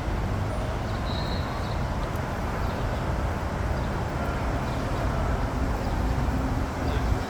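Steady city street noise with a low traffic rumble. A brief high beep sounds about a second in.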